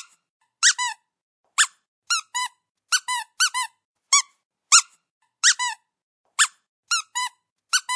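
Toy mouse squeaking: short, high squeaks, alone or in quick pairs and threes, a little more often than once a second.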